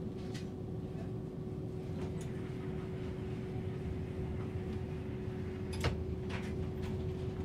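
Passenger train rolling slowly, heard inside the carriage: a steady low rumble with a constant hum, and one sharp click about six seconds in.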